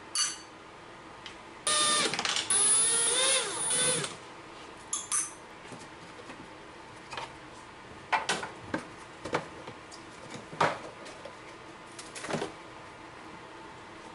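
An electric motor whirs for about two seconds, its pitch wavering, followed by a scattered series of short clicks and knocks.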